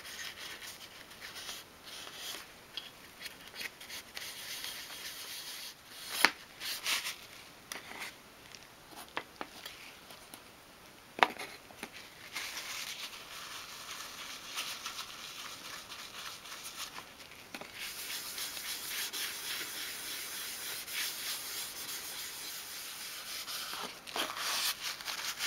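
Kitchen towel rubbed over small wooden furniture pieces to work in clear wax, a steady scratchy rubbing in small circular strokes. A few sharp knocks come in between, the loudest at about 6 and 11 seconds in.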